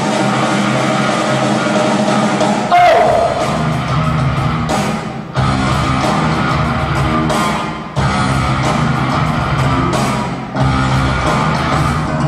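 Live rock band playing: electric guitars, bass, keyboard and drums, with a singer. About three seconds in, a loud note slides down in pitch, and the music dips briefly three times after that.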